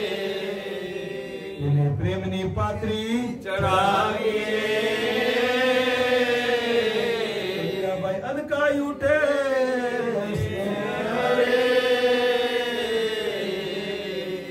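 A man's voice chanting a devotional hymn into a microphone in long, drawn-out notes that slowly rise and fall in pitch, with a few short breaks for breath.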